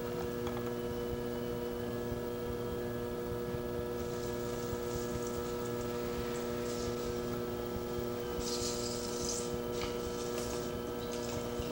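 A steady electrical hum runs under soft hissing and rubbing from wet hands shaping the clay walls of a pot on a turning potter's wheel, most noticeable about four seconds in and again around the nine-second mark.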